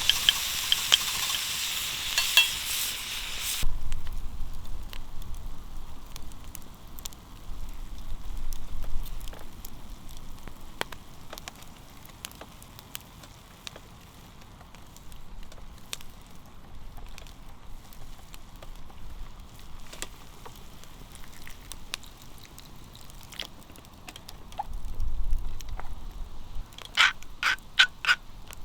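Food sizzling and crackling in a frying pan, cutting off suddenly about three and a half seconds in. After that it is much quieter, with scattered small clicks, and near the end comes a quick run of sharp clicks or taps.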